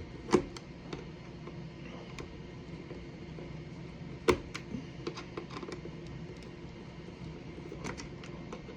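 Scattered light clicks and knocks from a Hermes 3000 typewriter being handled as the screws holding its shell are worked loose. A sharper click comes near the start and another about four seconds in.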